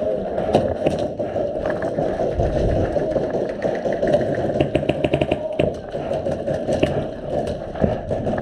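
Airsoft guns firing during a game: scattered single shots, and a quick burst of rapid shots about halfway in, over a steady mechanical hum.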